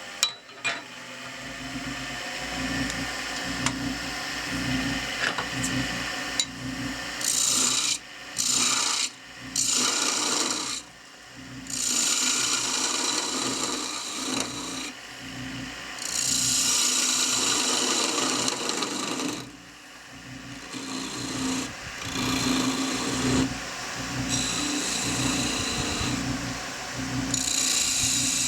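Wood lathe running with a 1/2 inch spindle gouge cutting a spinning pear-wood spindle: a steady motor hum, with a hissing, scraping cut that comes and goes in passes of one to three seconds.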